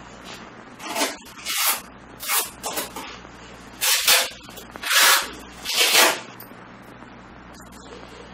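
Hammock fabric swishing and rustling in several short bursts as it is pulled out of its backpack and shaken open.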